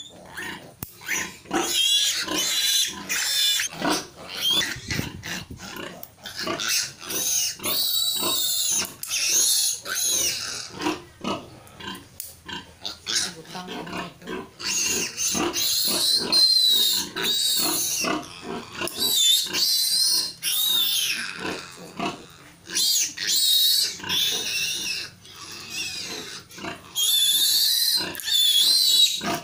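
Newborn piglet squealing in repeated long, high-pitched bouts with short breaks, while it is held and its needle teeth are clipped.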